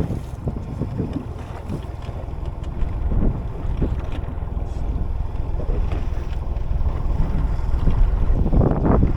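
Wind buffeting the microphone aboard a small leisure boat at sea, a steady low rumble that swells irregularly, with a few faint knocks.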